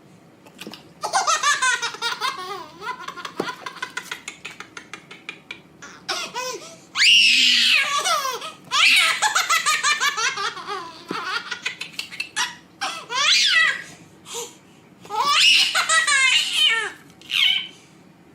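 A baby laughing hard in repeated fits of giggles and high squeals, with short pauses between the bouts.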